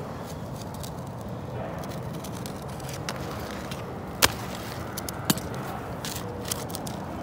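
Steady outdoor background noise, with two sharp clicks about a second apart midway through, as an asphalt ridge cap shingle is handled and trimmed with a knife.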